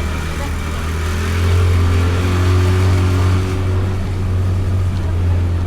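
Honda Beat scooter's small single-cylinder engine running on the move, picked up close by a camera mounted on the bike. About a second in it gets louder and rises a little in pitch as the scooter speeds up, then eases off.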